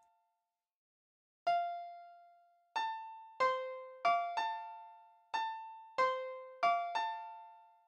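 Slow, sparse piano background music: about nine single notes and two-note chords struck one at a time and left to ring out, starting about a second and a half in.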